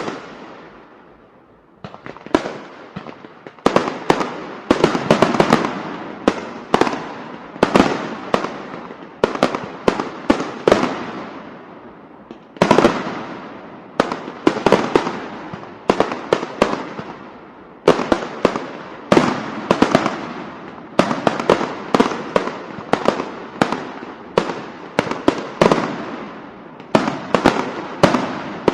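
Diwali firecrackers going off in quick, irregular succession: dozens of sharp bangs, some in rapid clusters, each trailing off in a rolling echo.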